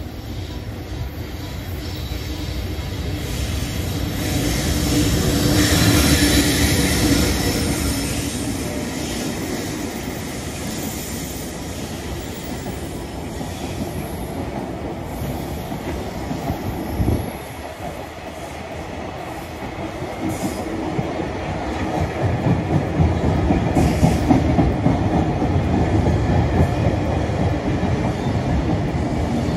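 Electric freight train passing close by a station platform. The locomotive goes past first and is loudest about six seconds in. A long line of container flat wagons follows, their wheels clattering and clacking over the rail joints.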